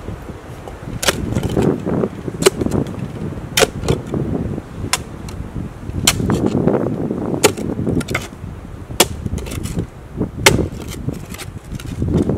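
Metal spade digging into woodland earth: a sharp scrape each time the blade is driven in, roughly once a second, with soil crumbling and rustling as it is levered out and dumped on the pile.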